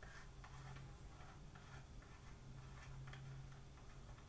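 Near silence: faint, light clicks from the plastic body of a helmet camera as it is twisted apart by hand, over a low steady hum.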